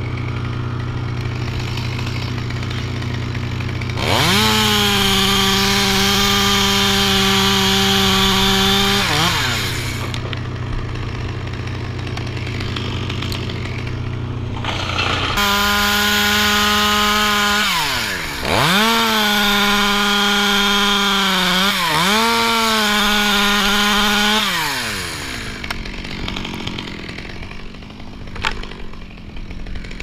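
Stihl 200T top-handle chainsaw idling, then run up to full throttle and held for about five seconds while cutting through a limb before dropping back to idle. About halfway through it revs up again for a longer cut of about nine seconds with two short dips in revs, then winds down near the end.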